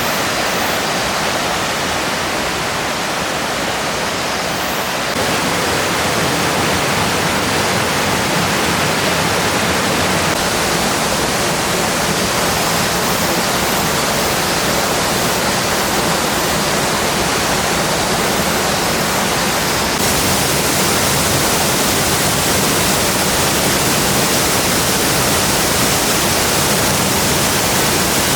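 Waterfall crashing down, a steady full rush of falling water and spray, a little louder after about five seconds.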